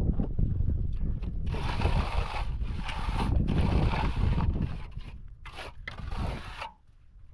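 Wind buffeting the microphone as a heavy low rumble, with a scraping, rustling noise over most of the middle; both die down near the end.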